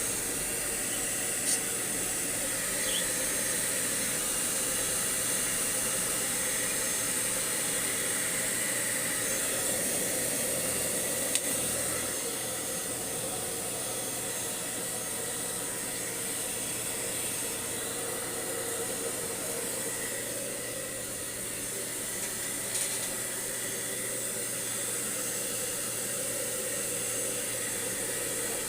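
Blow dryer running steadily, drying a husky's coat after a bath, with a slight dip in level midway.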